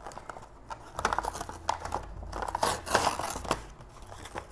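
Cardboard backing being peeled and torn off a clear plastic blister pack, with ragged tearing, scraping and plastic crinkling, busiest from about a second in.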